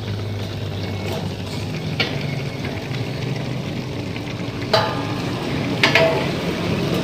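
Steady hissing rush of a gas-stove burner running on homemade gasoline-vapour gas driven by an air pump. A few sharp metal knocks ring out, the loudest about five and six seconds in, as a sheet-metal windshield box is set down over the burner.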